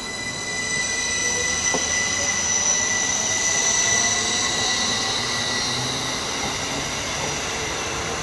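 Northern Class 333 electric multiple unit running past, a steady high-pitched whine over the rumble of its wheels on the rails, with a lower tone rising in pitch through the middle of the pass. A single sharp click sounds near the start.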